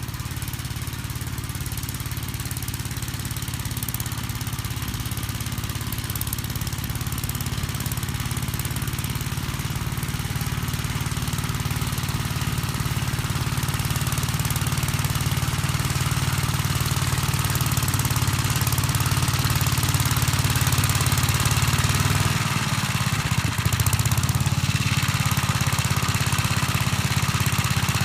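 1959 Gravely Model L tractor's single-cylinder engine running steadily, growing gradually louder, with a brief dip a little past twenty seconds before it runs on.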